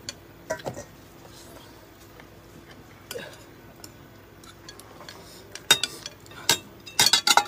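Tableware and eating noises: scattered clicks and clinks of plates and a steel bowl as food is handled. A quick flurry of clicks comes near the end.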